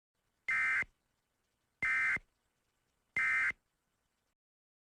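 Emergency Alert System SAME data tones: three short bursts of the warbling digital end-of-message code, with about a second's pause between them. They signal that the alert message is over.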